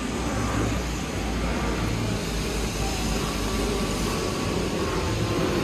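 Steady low rumble of street traffic on a wet road, mixed with a passenger plane passing overhead.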